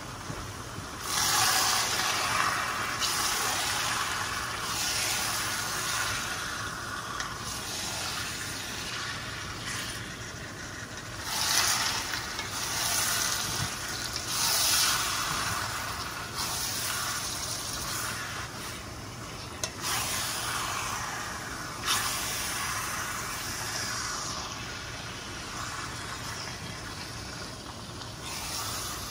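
Chopped meat sizzling in a hot stainless steel frying pan as it is stirred with a wooden spatula. The sizzle starts about a second in and swells and fades several times as the meat is turned.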